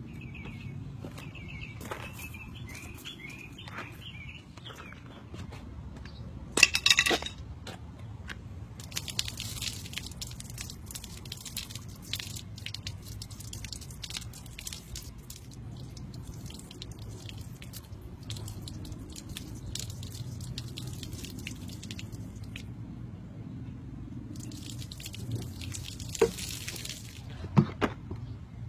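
Water poured from a cooking pot over a dented plastic car bumper, splashing and dripping onto the ground in two long stretches. A short loud sound comes about seven seconds in, and a few sharp knocks near the end.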